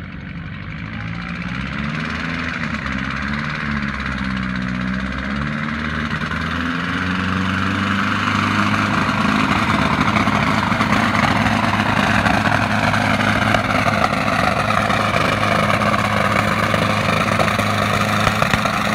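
Turbocharged Allis-Chalmers WD45 tractor engine running hard under full load while pulling a weight-transfer sled. Its pitch shifts up and down in the first several seconds, then holds steady at high revs, growing louder through the second half of the pull.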